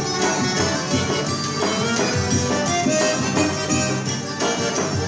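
Forró band playing an instrumental passage between sung lines, with a steady beat.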